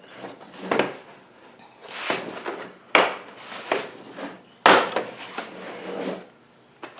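A new torque wrench being handled out of its plastic carry case: rubbing and rustling, with two sharp clacks about three and almost five seconds in.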